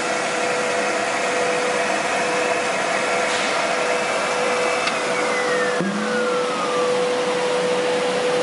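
Twin-screw extruder pelletizing line running: a steady machine drone with a constant whine. A second whine falls in pitch about five seconds in.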